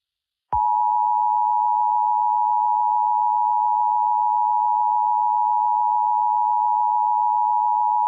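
EAS two-tone attention signal: two steady tones near 850 and 960 Hz sounding together, starting about half a second in and held unbroken for about eight seconds. It is the alert tone that comes before a broadcast emergency warning.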